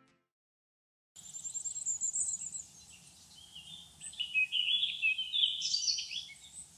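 Wild birds singing outdoors, starting about a second in: first a fast high trill, then a run of varied chirping phrases over a faint steady background.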